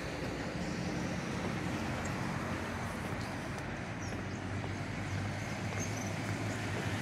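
Road traffic passing: a steady rush of road noise with a vehicle engine's low hum that grows louder about halfway through.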